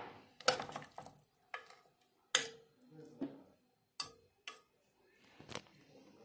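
Metal ladle clinking and scraping against the inside of a metal cooking pot while stew is scooped out: five or so sharp knocks a second or two apart.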